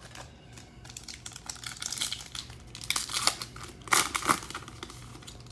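A trading-card pack wrapper crinkling and being torn open, in irregular crackles that are loudest about three to four seconds in.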